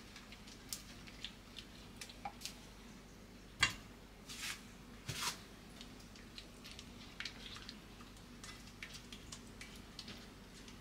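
Silicone spatula stirring and pressing thick caramel sauce in a coated frying pan: soft sticky squishes and light clicks as the sauce is mixed until it thickens, with one sharper knock of the spatula against the pan about three and a half seconds in.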